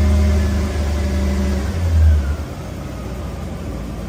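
Toyota 1UZ-FE V8 engine running briefly, rising once about two seconds in, then dropping away as it fails to hold an idle. It is stalling because the ECU does not yet know where the idle speed control valve is.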